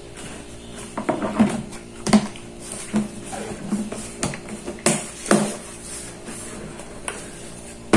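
Plastic bowl and its lid being handled: irregular knocks and clacks as the lid comes off and food is taken out of the bowl, over a steady low hum.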